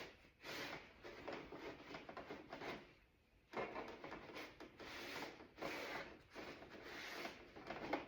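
Hand scrubbing on a door panel: faint, uneven back-and-forth rubbing strokes as the surface is scuffed clean to prep it for paint, with a brief break about three seconds in.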